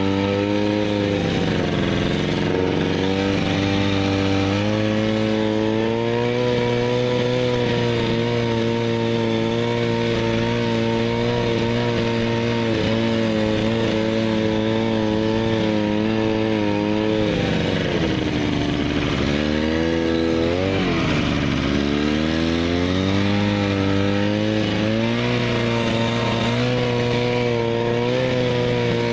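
An engine running without a break, its pitch wandering up and down, with a drop and quick climb about two-thirds of the way through.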